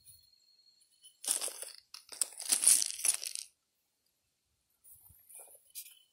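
Rough crunching, scraping noise in two stretches, the first about a second in and a louder, longer one from about two to three and a half seconds in.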